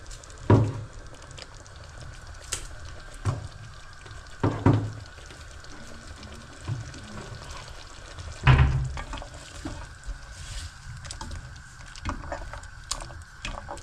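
Blended tomato sizzling in a frying pan as it is stirred, with a few sudden knocks of the spoon against the pan, the loudest about eight seconds in.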